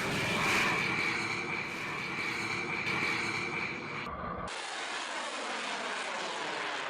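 Jet aircraft engine running, a steady high whine over a broad rush. About four seconds in, the sound cuts abruptly to a different, duller steady rushing noise.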